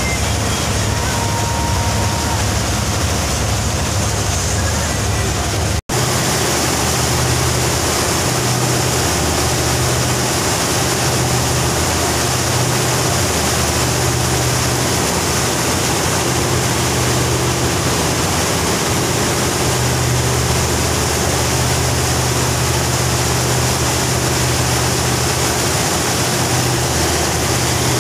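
River taxi boat's engine running steadily under way, with a constant rush of water and wind over it. The sound drops out for an instant about six seconds in.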